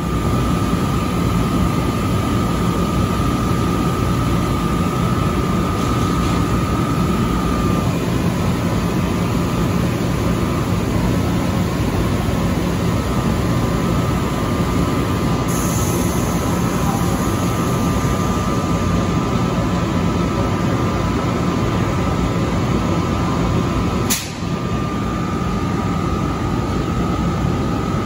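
NJ Transit ALP-46A electric locomotive standing at the platform, its blowers and electrical equipment running as a steady noise with a low hum and a high whine. A short high hiss comes about halfway through, and a sharp click comes near the end.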